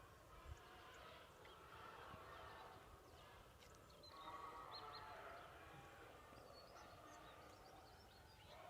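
Faint chorus of many pigs squealing and calling at a pig farm, the calls overlapping and swelling a little about four seconds in, with a few short high chirps over it.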